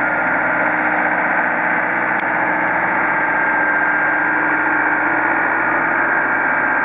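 An engine running steadily at a constant speed, with a brief high click about two seconds in.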